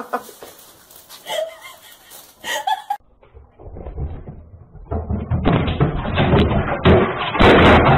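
A rapid, loud clatter of knocks and bangs that builds from about five seconds in, recorded with a thin, low-quality sound.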